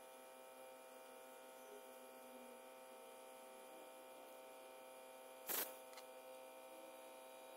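Faint steady electrical hum with many even overtones, with a single sharp click about five and a half seconds in.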